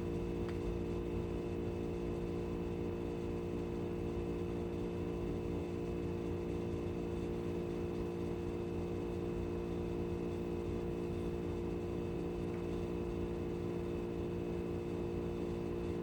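Steady, unchanging hum made of several steady tones, like a running machine or electrical hum in the room. The slow cranking of the vise makes no sound that stands out above it.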